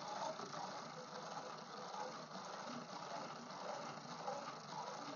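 Small hand-cranked generator from a school science kit being turned steadily, its plastic gears giving a faint rattling whir as it drives current through a resistor coil to heat it.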